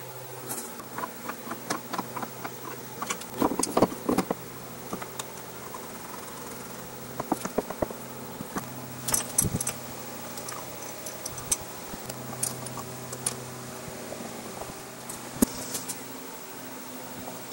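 Metal parts of a benchtop horizontal milling machine clinking and knocking as it is put back together by hand: scattered clicks and clanks, over a steady low hum.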